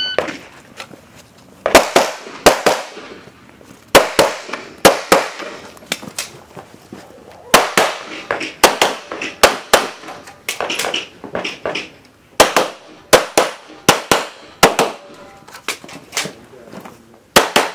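A shot timer's start beep, then a string of pistol shots fired over about seventeen seconds, mostly in quick pairs with short pauses between groups, each shot ringing briefly off the surrounding walls.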